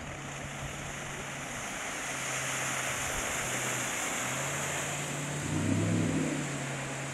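Suzuki DF70 four-stroke outboard on a small cabin motorboat running flat out and planing past close by. Its steady drone grows louder and is loudest about six seconds in. A rushing hiss of water from the hull and wake runs throughout.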